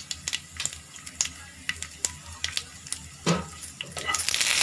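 Mustard, cumin and coriander seeds crackling in hot oil in a pan, with scattered sharp pops. About three seconds in there is a knock, and near the end a loud, steady sizzle begins as more food goes into the oil.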